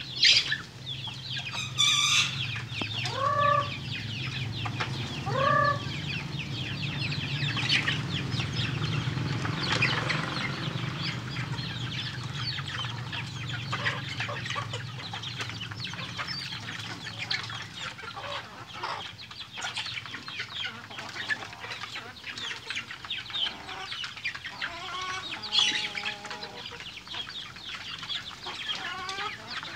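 Flock of young free-range native chickens clucking and calling as they crowd in to feed. Two louder drawn-out calls come a few seconds in.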